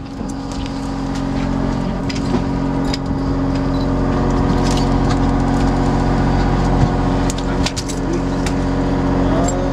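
Party boat's engine running at a steady speed, a constant hum, with scattered clicks and knocks over it.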